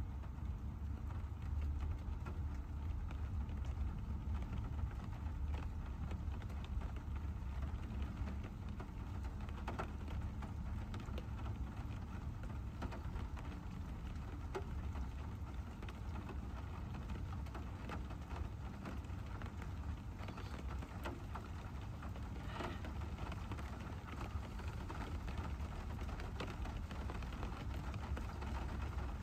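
Rain falling on a moving car, over a steady low rumble of engine and road noise, with a few sharper drop hits.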